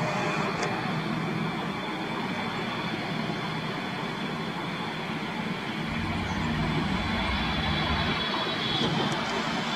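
Boeing 777-300ER's GE90 turbofan engines on final approach and flare, a steady rushing jet noise with a faint high whine. A deeper low rumble joins about six seconds in as the airliner passes close over the runway just before touchdown.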